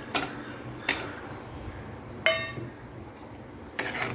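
A cooking utensil clinking against a metal kadhai: four sharp metallic knocks about a second apart, the third ringing briefly.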